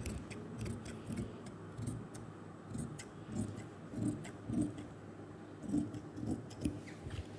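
Large tailor's shears cutting through fabric: a run of about ten snips, the steel blades clicking as they open and close.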